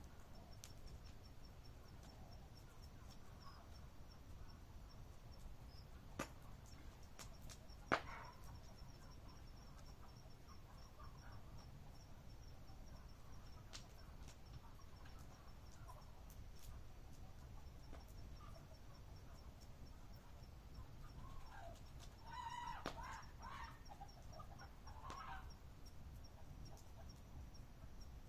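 Faint campfire at night with two sharp pops from the fire, over a faint high pulsing trill; a short call-like sound near the end.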